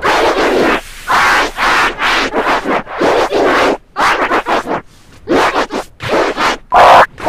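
Vinyl record scratching on a DJ turntable, in short choppy bursts with brief gaps and a quieter stretch about halfway through.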